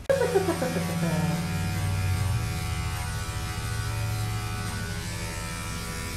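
Andis five-speed electric dog-grooming clipper running with a steady buzz as it shaves the fur on a dog's neck and chest. A short falling whine sounds in the first second.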